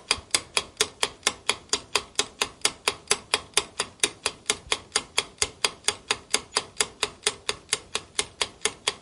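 Countdown-timer sound effect: steady clock ticking, about four ticks a second, marking the seconds left to answer.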